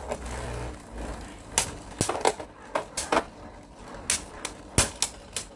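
A Beyblade spinning top circling in a clear plastic stadium, giving a series of irregular sharp clicks and rattles as it knocks against the plastic.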